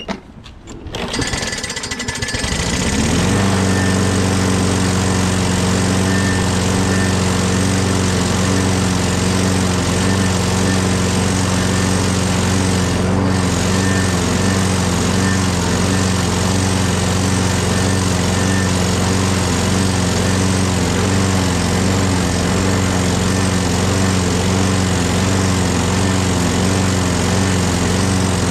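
Briggs & Stratton Quantum 6.5 hp lawnmower engine starting: a few brief knocks as it turns over, then it catches about two seconds in, picks up speed and settles into a steady run.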